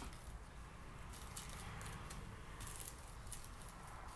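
Faint, scattered light clicks and rattles of small plastic craft items, such as glitter containers, being handled and sorted on a table.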